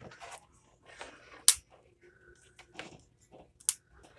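Handling noise from curling hair with a flat iron: soft rustling of hair and clothing, with two sharp clicks, one about a second and a half in and one near the end.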